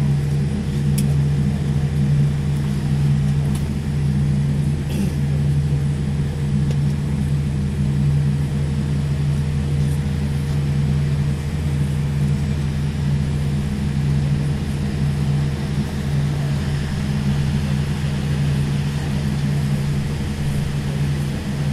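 Cabin noise inside a Boeing 787 Dreamliner taxiing after landing: a steady low drone of the engines and air systems with a thin steady whine above it.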